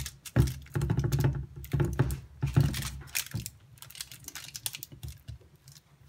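A silicone spatula pressing and patting a sticky oat-and-date mixture flat on parchment paper laid over a glass microwave plate, with the paper crinkling. It makes a run of irregular small taps and crinkles, busier in the first half.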